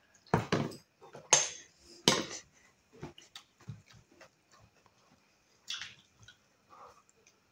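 Eating with the hands from steel plates: fingers mixing rice against the metal, with three loud knocks and clatters of the plates in the first couple of seconds, then scattered soft clicks and smacks.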